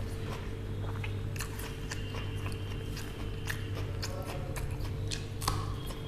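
A person chewing and biting a mouthful of rice with dal shukno close to the microphone. There are many short irregular mouth clicks and a few crunches, over a steady low hum.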